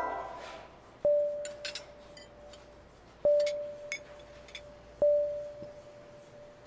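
A clear bell-like chime struck three times, about two seconds apart, each note ringing out slowly. Faint light clinks are heard between the strikes.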